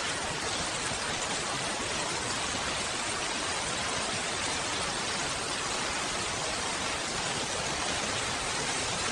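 Steady, even hiss of heavy rain, with no single drops or other sounds standing out.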